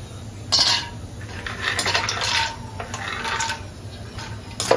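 Stainless-steel kitchenware clattering: a slotted spoon scraping in a steel kadai and steel plates clinking. It comes in a few separate bursts, with sharp clinks near the end.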